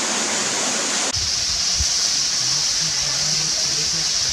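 Waterfall pouring into a rock pool: a steady rush of falling water that shifts abruptly to a hissier sound about a second in.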